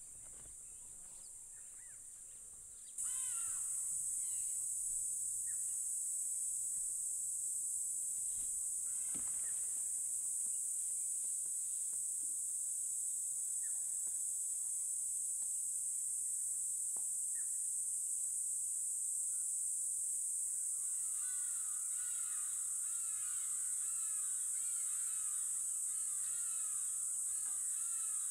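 A steady, high-pitched insect drone that starts abruptly about three seconds in. Scattered bird calls sound over it, and in the last several seconds a bird sings quick, repeated chirping phrases.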